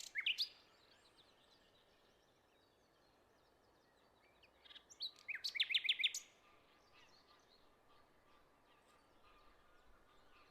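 Bird calls over a faint steady hiss: a short burst of chirps at the start, then a fast run of sharp chirps about five to six seconds in, followed by faint scattered calls.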